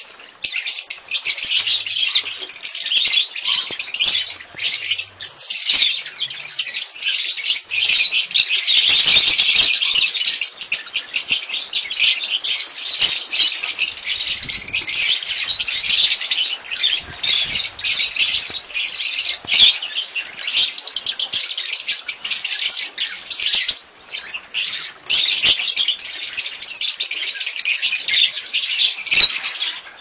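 A flock of masked and Fischer's lovebirds chattering in an aviary: a dense, continuous mass of shrill, high-pitched chirps and squawks, with a brief lull about four-fifths of the way through.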